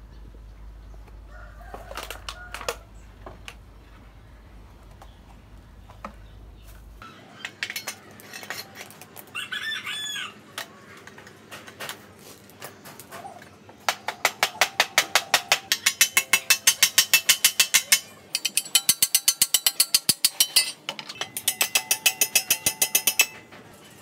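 A rooster crows in the background, once early on and again about ten seconds in. Then come three runs of loud, rapid creaking clicks, about ten a second, as the steel pipe handle is worked and twisted in the rusty socket of an old long-handled rake head.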